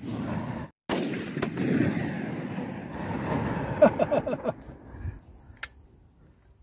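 Darra-made 12-bore double-barrel shotgun firing about a second in, its report rolling and echoing on for about three seconds before dying away. A few light clicks follow near the end.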